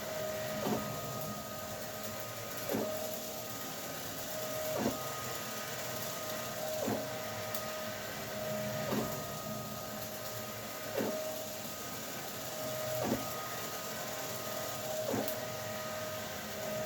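Stepper motors of a 3D-printed CNC machine whining steadily as it runs its first G-code program. About every two seconds there is a quick falling sweep in pitch.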